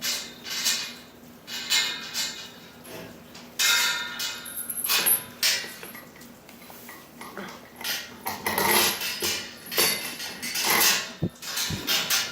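A horse eating grain from a bucket close to the microphone: chewing, with irregular knocks and rattles as its muzzle pushes the bucket about.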